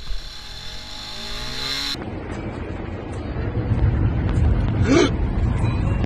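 Motorcycle engine revving and rising in pitch as it accelerates. After a cut, a steady low rumble of road and engine noise inside a car, with one brief sharp rising sound about five seconds in.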